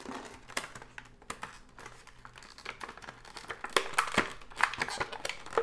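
Clear plastic blister packaging crinkling and clicking as it is handled and worked open, in irregular crackles that get busier over the second half.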